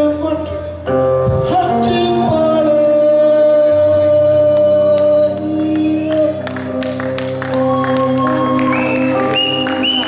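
Live band performance: a man sings long held notes over electric bass guitar and the rest of the band.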